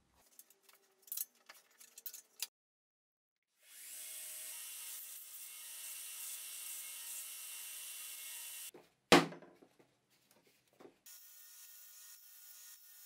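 Belt grinder running with a steel block pressed against its abrasive belt, grinding off rust and old paint, in two stretches. A single loud sharp knock comes about nine seconds in, between them. The first couple of seconds hold light clicks and taps of metal parts being handled.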